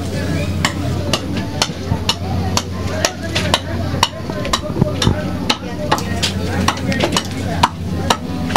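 Palm leaves rustling and crackling as they are folded and woven by hand, with sharp clicks about two to three times a second over a steady low hum.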